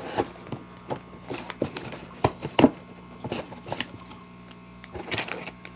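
Scissors snipping and working at cardboard and plastic packaging: a run of irregular sharp clicks and snips, over a steady low electrical hum.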